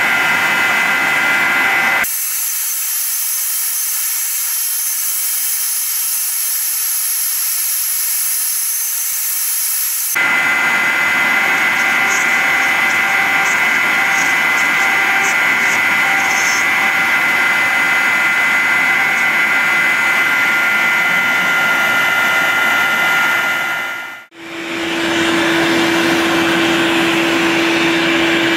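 CNC router spindle running steadily with a high whine as the bit cuts pockets into a board. The sound changes abruptly a few times. Near the end it cuts out briefly and a vacuum cleaner's steady hum takes over.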